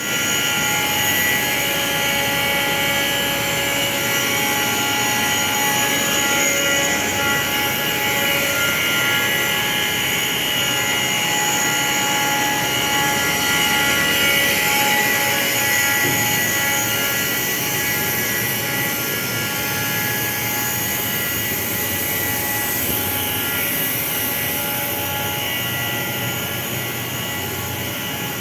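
Industrial cooling and laser machinery running steadily: a constant whir with several steady whining tones held throughout.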